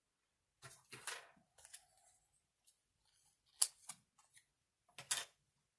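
Close hand-sewing handling sounds: a short rustle about a second in, then a few sharp clicks and snips, the loudest near the middle and another near the end, as a button on its paper card and the needle and thread are handled.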